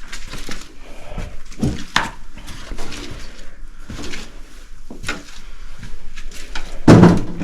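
Footsteps and clattering debris underfoot on a wet, littered floor: a string of separate knocks and clinks about once a second, with one louder bang about seven seconds in.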